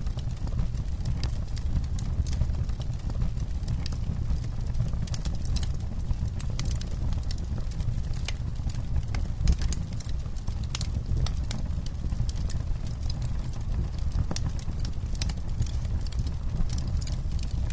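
Campfire crackling: frequent irregular sharp pops and snaps over a steady low rumble.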